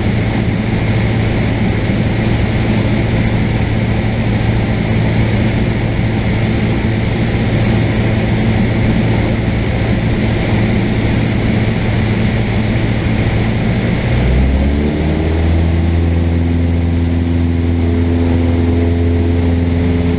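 Cessna 172 engine and propeller heard from inside the cabin, running with a steady drone. About 14 seconds in the engine note changes, gliding up and settling into a new steady pitch: a power change during a simulated engine-failure practice.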